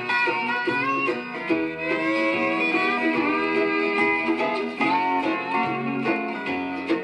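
Country string-band music with guitar, playing back from a black Lexan disc at 33 rpm cut on a Presto 6N record lathe; an instrumental stretch with no singing, with some sliding notes.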